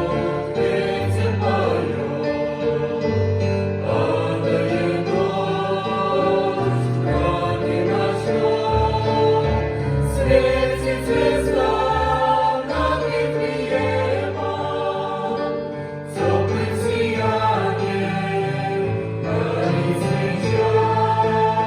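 A choir singing in several parts, holding long chords over a low bass line.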